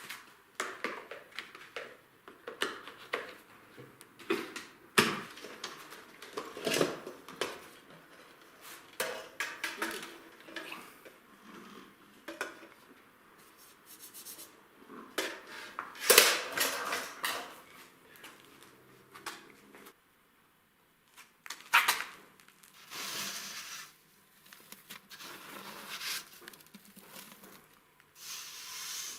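Irregular clattering and knocking of hard objects being handled, with scraping and rubbing between the knocks.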